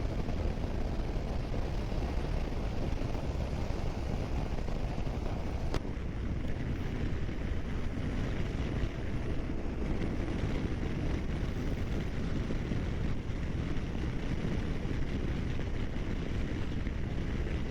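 Motorcycle under way at steady speed: engine and road noise mixed with wind rushing over the microphone.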